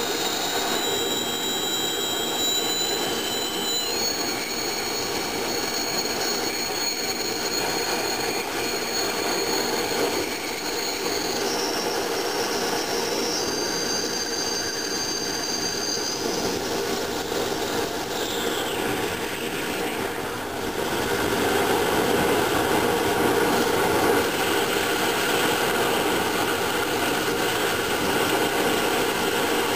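Hago siphon-nozzle oil burner firing: a steady flame roar with shrill whistling tones that step in pitch and then glide down and stop about two-thirds of the way through. After that the roar gets louder.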